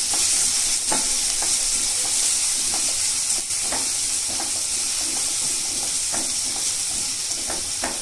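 Chopped onion, green chillies and cumin sizzling in hot oil in a kadhai as they are sautéed, with a steady hiss. A spatula stirs them, scraping and tapping against the pan in short irregular clicks.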